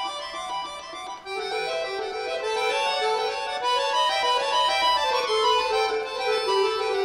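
Chromatic button accordion played solo: a quick stream of short notes in rising and falling runs, with a brief break about a second in.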